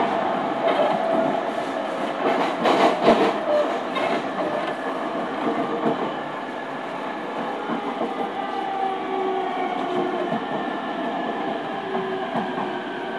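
Running noise from under the floor of an E231 series motor car with updated equipment, with the traction motor and inverter whine as several steady tones that slowly fall in pitch as the train slows. Wheels click over rail joints a few times about three seconds in.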